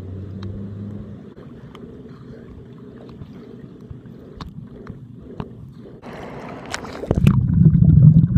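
Underwater sound in a swimming pool, picked up by a submerged camera: a muffled low rumble with scattered small clicks of bubbles. About seven seconds in, a loud, muffled low hum comes in and holds to the end.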